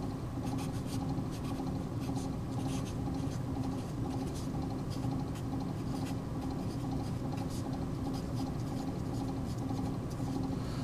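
Sharpie permanent marker writing on paper, its felt tip making short, irregular scratchy strokes as a line of words is written by hand, over a steady low hum.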